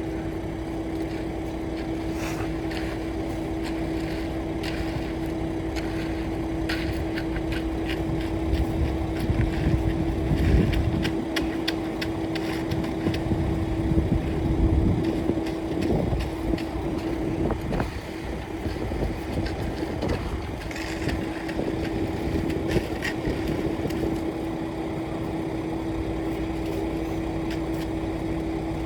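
An engine of the concrete-pouring equipment running steadily with a constant hum, with scattered clicks and scrapes on top of it.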